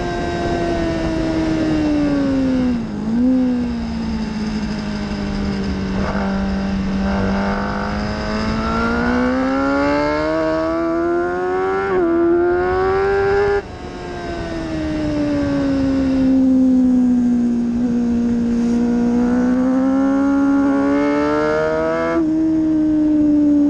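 Kawasaki ZX-10R's inline-four engine at race pace. The revs dip about three seconds in, then climb steadily for some ten seconds. They cut off sharply as the throttle closes, wind down for a few seconds and climb again near the end.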